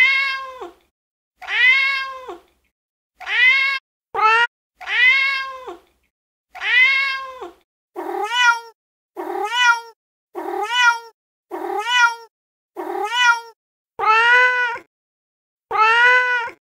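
Recorded domestic cat meows played back one after another from a cat-sounds app, about a dozen calls roughly a second apart with clean silence between them, one of them cut short about four seconds in. Each meow rises and falls in pitch. About eight seconds in the meow changes to a shorter, quicker one as a different sound button is played, and near the end it changes again to a longer, drawn-out meow.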